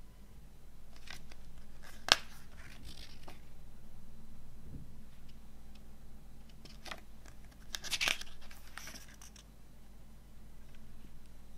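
Pages of a glossy paper CD booklet being turned by hand, with paper rustling and sliding. A sharp click comes about two seconds in, and a longer rustle of a page turn around eight seconds in.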